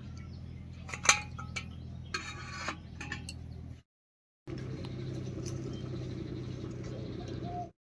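A few light clinks of metal cookware over a steady low hum. After a brief dropout the hum goes on alone.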